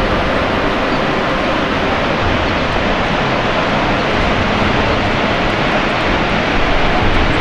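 Steady, loud rushing roar of the Niagara waterfalls heard from across the gorge.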